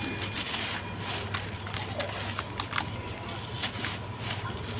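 Dry sand-cement blocks crumbling: irregular gritty crunching with scattered sharp cracks, a few of them louder than the rest.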